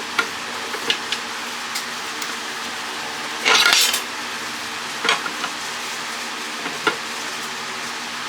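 Metal parts and tools clinking and clattering as an electric pump motor is taken apart: several short clinks, a longer metallic rattle about three and a half seconds in, and a couple more near the end. A room fan hums steadily underneath.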